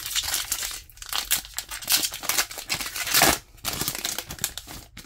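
Foil wrapper of a Pokémon trading card booster pack crinkling and tearing as it is ripped open by hand, with many quick crackles and the loudest rip about three seconds in.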